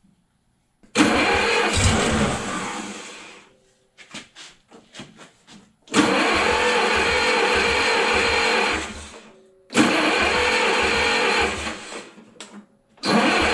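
Old 1950s gas engine on a Schramm Pneumapower 35-H air compressor being cranked over in three bursts of about three seconds each, with a low rhythmic pulsing as it turns. It tries to fire but does not keep running, and a fourth attempt begins near the end.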